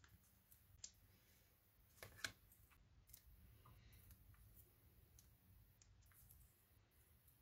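Mostly near silence, with a few faint clicks and rustles of hands handling card stock and small 3D foam adhesive pads. The sharpest click comes about two seconds in.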